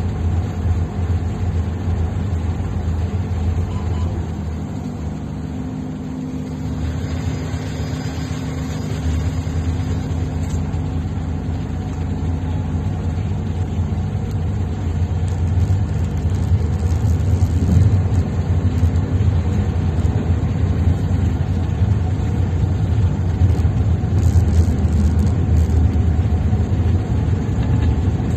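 Tugboat's engines running steadily underway, a deep, even drone, over the rush of the churned-up wake.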